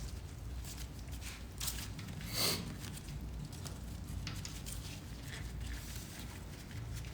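Light clicks and handling noises of a wrench and metal brake-line fittings as a banjo bolt is undone from a motorcycle's rear brake caliper, with one louder scrape about two and a half seconds in.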